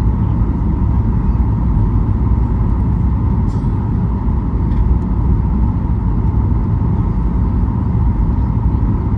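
Boeing 737 MAX 8 cabin noise on approach: a steady rush of airflow and CFM LEAP-1B engine noise with a steady hum running through it.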